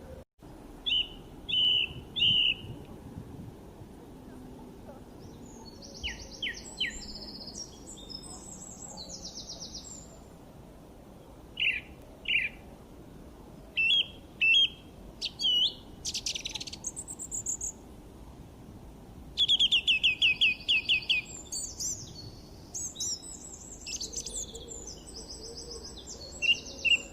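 Small birds chirping and singing: scattered short high chirps and whistled sweeps, with a loud, fast trill about two-thirds of the way through, over a faint steady background hiss.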